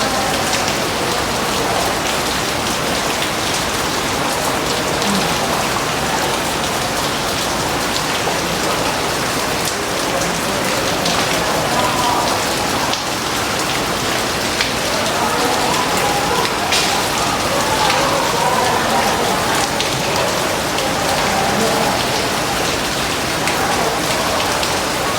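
Rain falling steadily, with scattered sharp drop hits.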